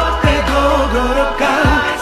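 A man singing a long, ornamented held line of a Malay-language song over band accompaniment, with a steady bass and a couple of deep drum beats.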